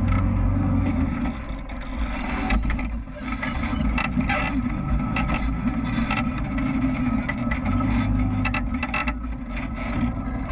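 ATV engine running while riding a dirt trail, its sound rising and falling with the throttle, with a dip about two to three seconds in.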